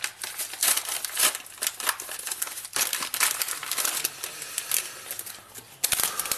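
Paper mailer envelope being torn open and handled, a fast, irregular run of crinkling and tearing, with the clear plastic bag inside crinkling as it is pulled out near the end.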